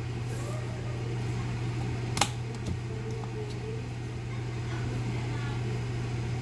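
A steady low hum of a running kitchen appliance motor, with one sharp click a little over two seconds in.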